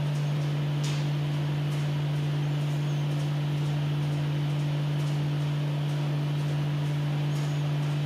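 A steady low hum, with a few faint ticks as thread is drawn through the guides of a leather sewing machine.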